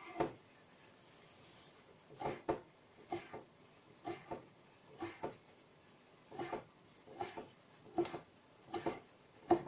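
Kitchen knife slicing deep-fried tofu (aburaage) on a wooden cutting board: soft knocks of the blade reaching the board, often two close together, about once a second from about two seconds in.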